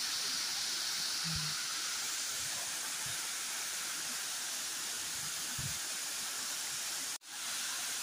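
Steady rush of a waterfall pouring onto rocks and into its plunge pool, with a momentary dropout about seven seconds in.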